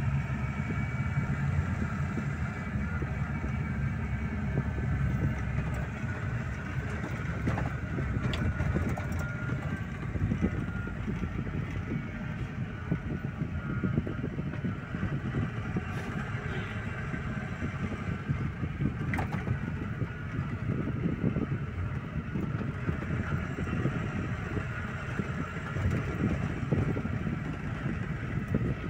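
Car driving at low speed, heard from inside the cabin: a steady engine and road rumble, with a few faint clicks or rattles.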